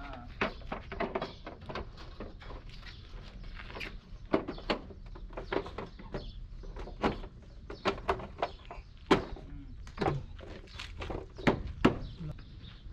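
Irregular clicks and light knocks of a plastic corner panel on a Mercedes-Benz truck cab being pushed and tapped into place by hand, a few sharper knocks near the end.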